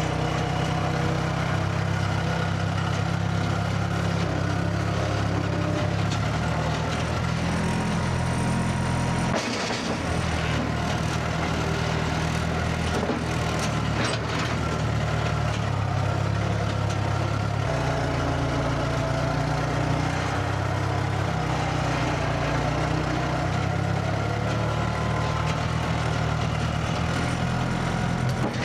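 Skid steer's engine running steadily, its speed shifting down about a third of the way in and changing again just past halfway, as the machine loads heavy log pieces.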